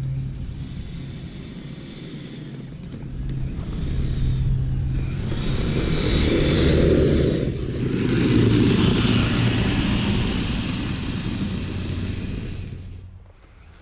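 Kyosho Blizzard radio-controlled tracked snow vehicle running through snow. Its motor hums steadily and the noise of the tracks grows louder through the middle, then drops off sharply near the end.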